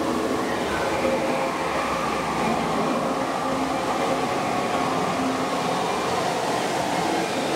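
Amusement-park ride vehicle running along its track in the dark: a steady rumble and rattle of wheels on rail, with some thin steady tones over it.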